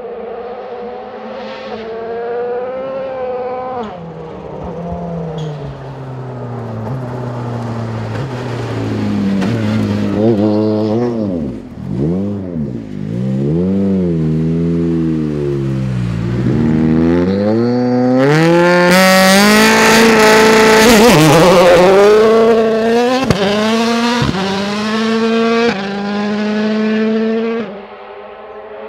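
M-Sport Ford Fiesta WRC rally car's 1.6-litre turbocharged four-cylinder at full attack, the revs climbing and dropping through gear changes, with deep dips and swings in pitch under braking and downshifts in the middle. It is loudest about two-thirds through, with a rush of tyre noise as it passes closest, then pulls away up through the gears and fades near the end.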